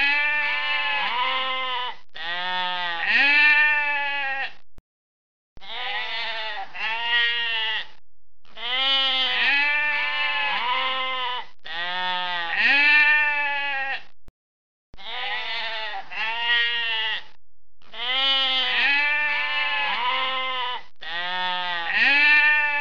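Sheep bleating over and over: runs of wavering bleats in groups every two to three seconds, with short gaps between. The sound cuts out completely twice, briefly, about five and fourteen seconds in.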